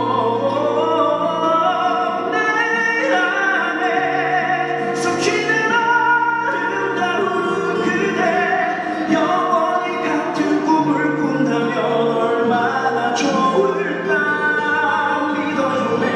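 A man singing a ballad into a microphone in a full, opera-like voice, holding long notes over instrumental accompaniment.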